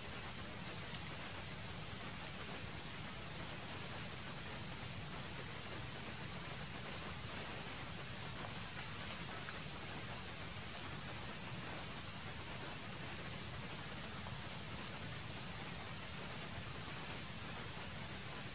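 Steady high-pitched drone of insects over a constant background hiss, with a few faint ticks.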